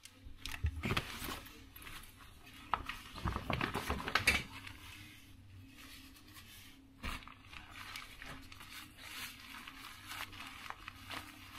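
Rustling and crinkling as gear is handled, busiest in two spells in the first half, with a single knock about seven seconds in and sparser small handling noises after.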